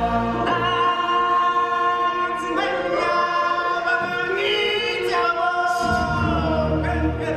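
Ensemble of voices singing long held notes in harmony, some notes gliding between pitches. A low bass accompaniment drops out about a second in and comes back near the end.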